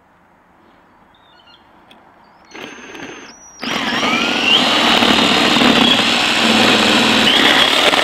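Cordless DeWalt drill with a spade bit boring into wood: a short spin-up about two and a half seconds in, then steady loud drilling from about three and a half seconds on, the motor whine dipping briefly just after it starts.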